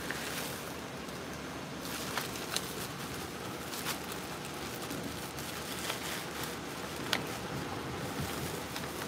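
A paper bag rustling and a few small sharp ticks as powdered bat guano is scooped out by the tablespoon, over a steady rush of air from a fan.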